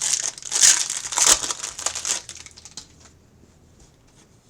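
Plastic trading-card packaging being torn open and crinkled by hand: about three seconds of crackly rustling that then stops.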